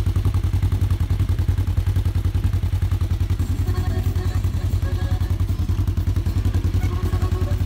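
Polaris RZR side-by-side's engine idling with a steady, even low pulse of about eleven beats a second.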